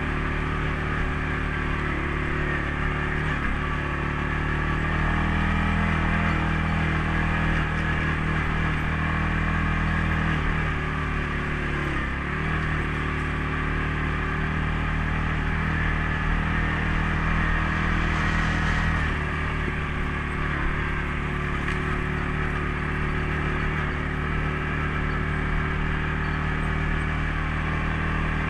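CFMOTO CForce 500S ATV's single-cylinder engine running steadily under way, its pitch dipping briefly a few times and then coming back up.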